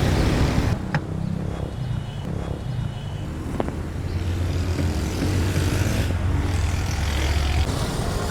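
Street traffic with a motor vehicle engine running steadily; the low engine rumble drops away shortly before the end.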